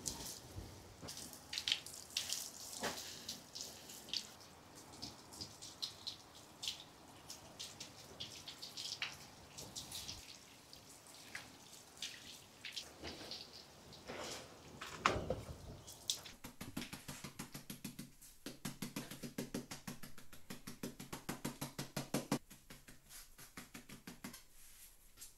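Water splashing and dripping onto the soil of a freshly repotted bonsai, as irregular spattering ticks. Past the middle, a fast, even pulsing over a low hum runs for about six seconds.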